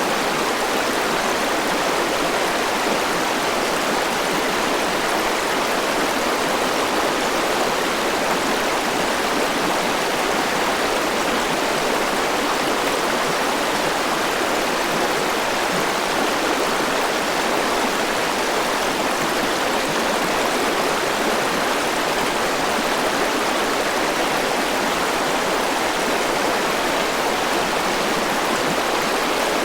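Forest river rushing over rocks in a steady, even wash of water noise.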